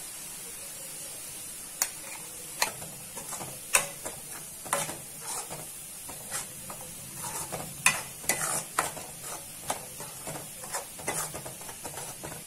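Steel ladle scraping and knocking against a kadai in irregular strokes, stirring ground masala paste into onions and mint, over a steady sizzle of the mixture frying in oil.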